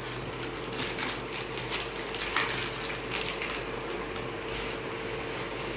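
Plastic snack wrappers crinkling and rustling in quick, scattered crackles as they are handled and torn open, with a sharper click about two and a half seconds in and a steady faint hum underneath.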